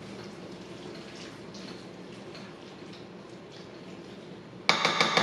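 Wet, soft stirring of mashed butternut squash and water in a stainless steel bowl. Near the end, a sudden loud run of quick metallic clatters with a ringing tone as the utensil strikes the bowl.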